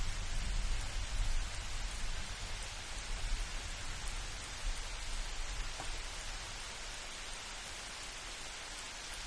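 Steady light rain hissing, with a low rumble of distant thunder dying away over the first few seconds.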